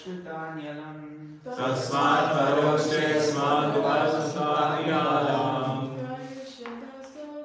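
A man chants a line of a Sanskrit verse. About a second and a half in, a group of voices joins in unison, louder and fuller, and the chanting lasts about five seconds before it fades back to a single voice.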